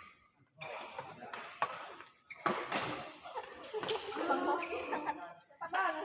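Badminton rally: several sharp racket hits on the shuttlecock, spaced a second or so apart, with short squeaky wavering sounds in the middle and near the end.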